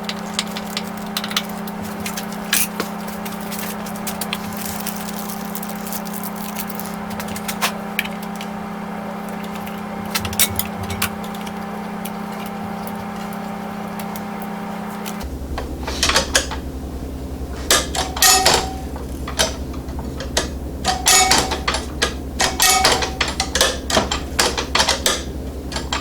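Metal parts and hand tools clicking and knocking as a lifter arm is unbolted and fitted to a scroll saw, over a steady low hum. The clicks are sparse at first and come thick and fast in the second half, where the hum changes to a deeper one.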